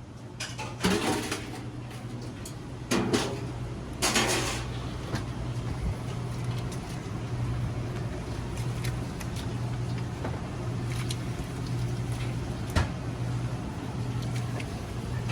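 Electric radish-slicing food machine running with a steady motor hum, with three loud clattering knocks about 1, 3 and 4 seconds in and lighter clicks scattered through.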